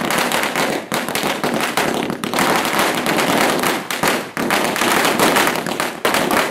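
Firecrackers exploding on the ground in a rapid, dense crackle of sharp bangs, many a second, with a few brief lulls.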